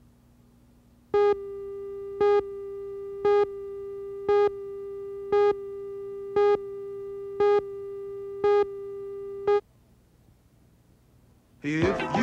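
Videotape countdown leader tone: a steady pitched tone with a louder beep once a second, nine beeps in all, which then cuts off. Music starts just before the end.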